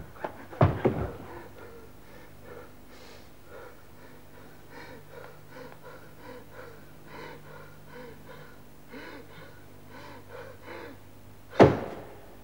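A man panting and gasping hard, short harsh breaths one after another. Two loud knocks come about half a second in, and one sharp, louder hit comes near the end.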